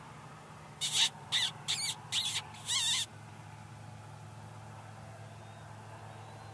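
Five short, high-pitched mouth squeaks, wavering in pitch, in quick succession about one to three seconds in. A hunter's predator call, squeaked with the lips to call in a bobcat.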